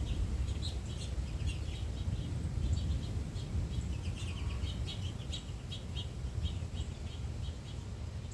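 Small birds chirping in rapid, repeated short notes, over a low rumble of wind buffeting the microphone as a storm blows in.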